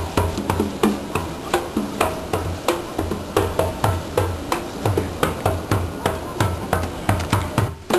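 Rhythmic percussion music: quick, sharp strikes several times a second over a steady low pulsing beat, with short pitched notes between them.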